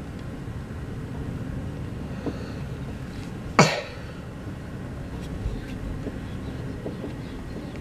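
One short cough close to the microphone about three and a half seconds in, over a steady low background rumble.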